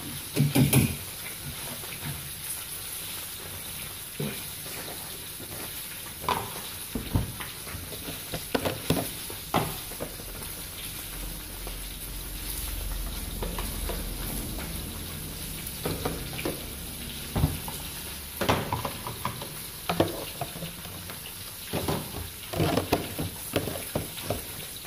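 Breaded cá mùi (kissing gourami) deep-frying in hot oil: a steady sizzle, with scattered clicks and knocks of a utensil against the pan.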